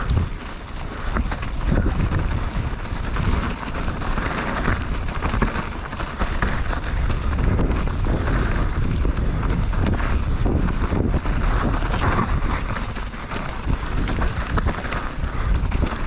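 Wind noise buffeting a helmet-mounted action camera's microphone over a mountain bike rolling fast down a rough dirt and stone trail, its tyres crunching and the bike rattling with many small knocks.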